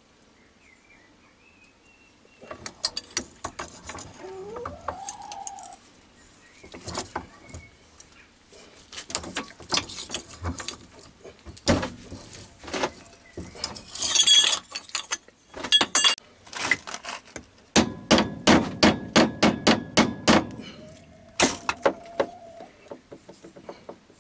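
Metal clanks and knocks of a steel bearing housing being worked in a bench vise, ending in a quick run of about a dozen ringing taps, roughly four a second, in the last third.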